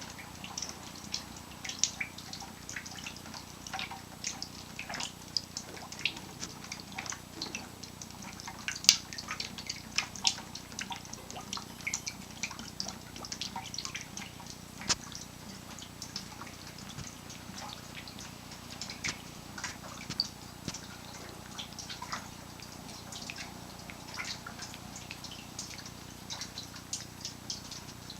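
Rainwater leaking through a hole in the ceiling and dripping, irregular drips several a second with a few much louder plops.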